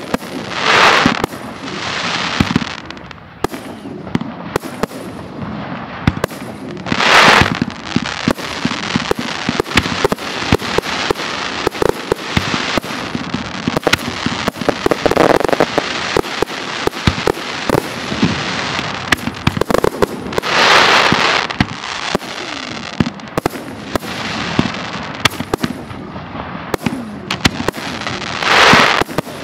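Professional fireworks display of aerial shells and F3 fireworks: a dense, continuous barrage of bangs and sharp cracks. Several louder swells of crackling hiss come about a second in, at about 7 and 21 seconds, and near the end.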